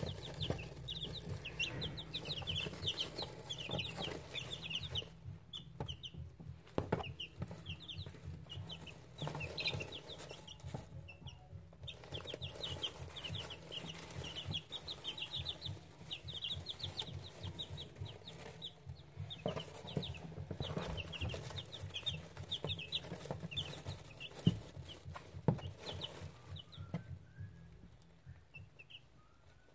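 Two-week-old buff chicks peeping: quick runs of short, high cheeps that pause briefly a couple of times and thin out near the end, over a low steady hum.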